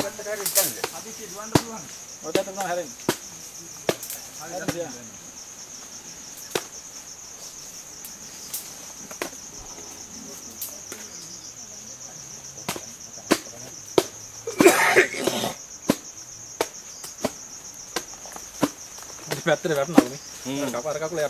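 Steady high-pitched drone of insects, with scattered sharp clicks and knocks and a few short bursts of faint voices.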